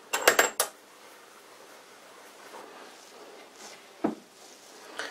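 Small steel lever handle on a reassembled lathe tailstock being worked by hand, clacking metal on metal against its cast-iron end cap: a quick run of about four sharp clacks at the start, then a single knock about four seconds in.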